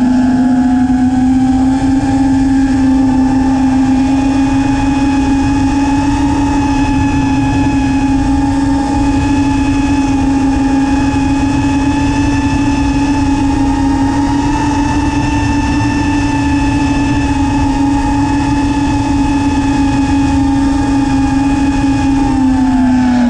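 FPV quadcopter's four brushless motors (Lumenier JB2208 2400kv) spinning DALPROP Cyclone 5-inch props, a loud, steady whine held at a cruising throttle. The pitch rises a little just after the start and drops near the end, with wind rumble on the onboard microphone underneath.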